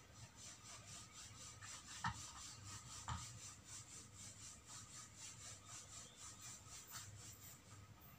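Faint, quick rhythmic rubbing of hands on a small stiff cloth doll's dress as stones are glued on and pressed down, several strokes a second, with two soft knocks about two and three seconds in.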